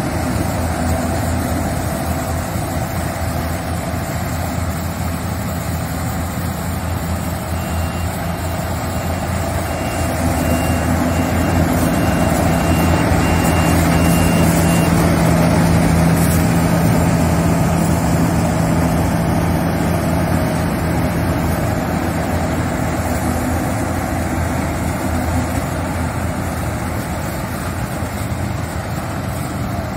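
Yanmar AW70GV rice combine harvester's diesel engine running steadily under load as it cuts paddy, getting louder for a few seconds near the middle.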